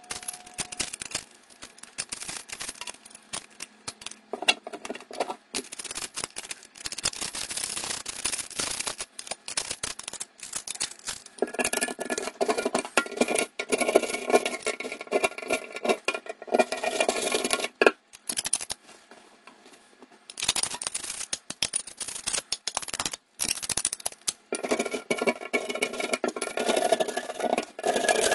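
A metal blade scraping old plumber's putty off a metal sink drain strainer in quick, rasping strokes. In two long stretches, one in the middle and one near the end, the scraping turns into a ringing metallic squeal.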